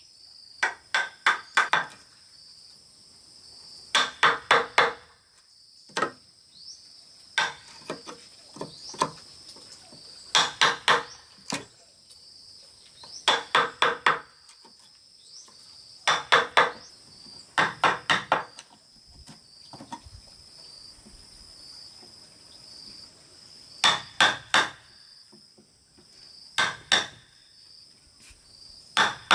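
Wooden mallet striking a chisel as a mortise is cut into a timber beam: sharp knocks in quick runs of three or four, with pauses between runs. A steady high drone of insects runs underneath.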